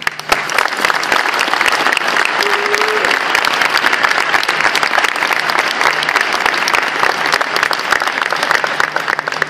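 Audience applauding: dense, steady clapping that starts abruptly and stays loud throughout.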